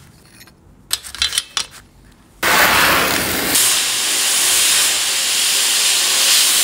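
A few light metal clicks from the shock's spring seat being handled. Then, about two and a half seconds in, a media blast cabinet's gun starts with a loud, steady hiss of air and grit, blasting the motorcycle's rear shock body and spring seat.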